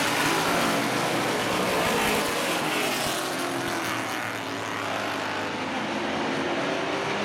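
Street stock race cars racing in a pack on an oval track, several engines running together as a steady, continuous sound.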